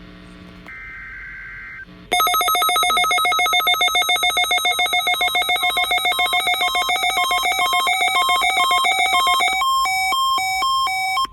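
Emergency alert test signal: the screeching data bursts of the SAME header finish in the first two seconds. Then a weather-alert receiver's electronic alarm sounds loudly, a fast warbling multi-tone beeping that turns into a slower alternating two-tone beep about ten seconds in. It cuts off near the end, leaving the steady 1050 Hz NOAA warning tone.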